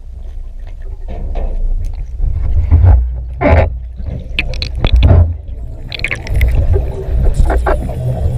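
Underwater camera sound: a steady low water rumble as a diver in a full-face mask swims upward, with several louder rushing bursts of bubbling air.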